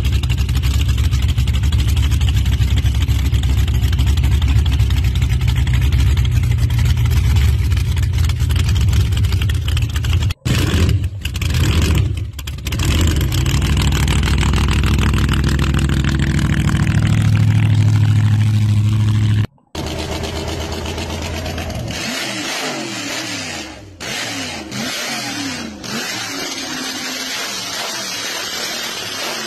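Hot rod V8 with open headers running loud and steady for most of the first twenty seconds, with short breaks. After a cut about two-thirds of the way in, it is revved up and down again and again, its pitch rising and falling.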